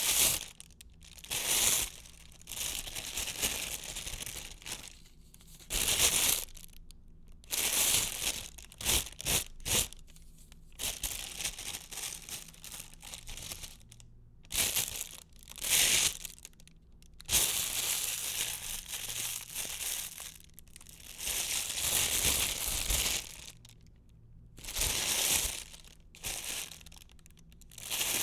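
Plastic wrapper being crinkled and crushed in the hands, in a long series of irregular crackling bursts, some brief and some lasting a second or two, with short pauses between.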